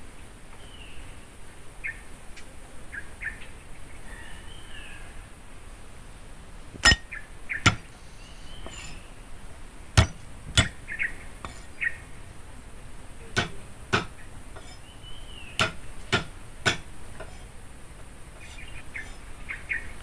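A heavy cleaver chopping down onto a thick wooden chopping block: sharp knocks starting about a third of the way in, irregular and often in pairs, about nine in all. Birds chirp throughout.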